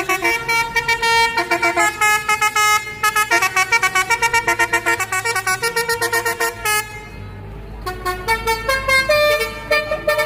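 A truck's 'telolet' basuri multi-tone horn playing a fast tune of short, chord-like honks that jump between pitches. About seven seconds in, the horn stops for about a second, leaving only a low engine rumble, then starts again.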